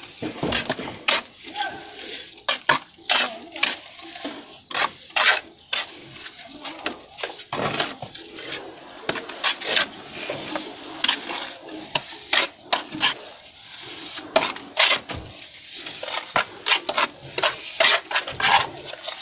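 Steel mason's trowel working cement mortar: it scoops mortar off a metal-edged hawk and scrapes it onto concrete, making many irregular metallic clinks and scrapes.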